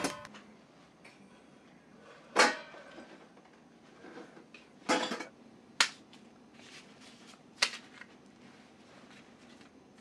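Room-service tray and dishes being handled, clattering in four sharp knocks spaced a second or two apart, the first about two seconds in.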